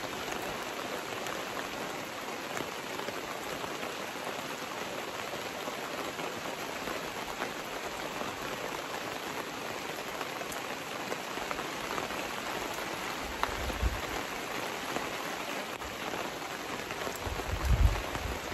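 Steady rain pattering on a canopy tent overhead, an even hiss with scattered drop ticks. Two brief low thumps, one about two-thirds through and a louder one near the end.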